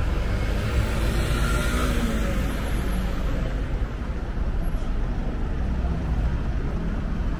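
City street traffic: a steady low rumble of passing road vehicles.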